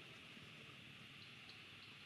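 Near silence: a steady high background hiss with a few faint ticks in the second half.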